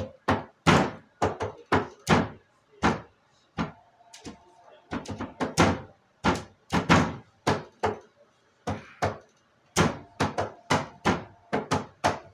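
A rapid, uneven series of sharp knocks, about two to three a second, with a couple of brief pauses.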